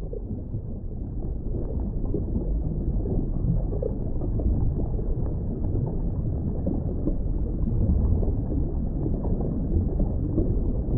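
A low, muffled rumble of film sound design that fades in and slowly grows louder.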